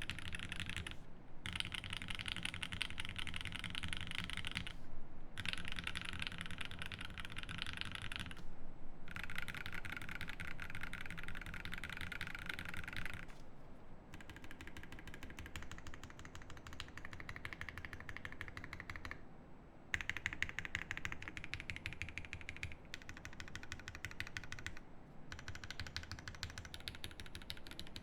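Fast, continuous typing on a Think 6.5 V2 mechanical keyboard with lubed Dogikon switches, an FR4 plate and GMK keycaps: a dense stream of keystrokes broken by a few short pauses.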